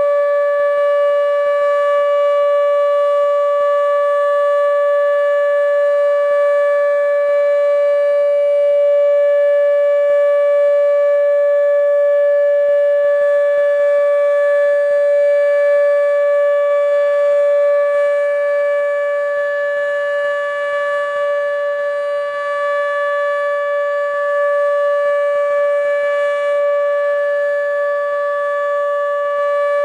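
ATI HPSS32 electronic speaker-array outdoor warning siren sounding a loud, steady tone at one fixed pitch, with no rise or fall, during a test.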